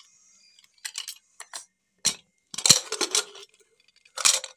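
Metal clinks and knocks of a knife against a pressure cooker's lid and whistle weight as the weight is lifted to let out the remaining pressure before opening. A single knock comes about two seconds in, then two clusters of short noisy bursts, the second near the end.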